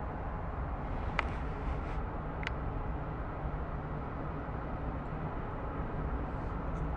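Steady low rumble of road and engine noise from a moving car, heard from inside the cabin, with two short clicks about a second apart near the start.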